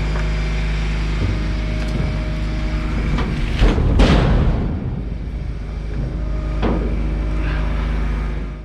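An engine running steadily, with scattered knocks and a heavy thud about four seconds in.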